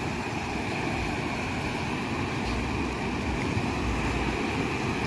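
Surf washing in with wind buffeting the microphone: a steady rushing noise with low rumbling gusts.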